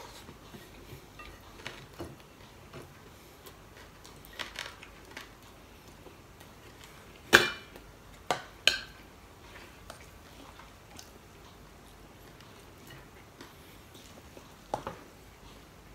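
Stainless steel cooking pot and its metal lid clanking and clinking as the lid is lifted off. The loudest is a single ringing clank about seven seconds in, with two sharper clanks right after it. A spoon clicks against the pot twice near the end, and faint handling clicks of tableware fall between.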